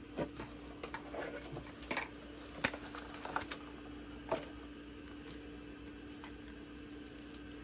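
Light clicks and taps of small items being picked up and set down on a work table, several in the first half, over a steady faint hum.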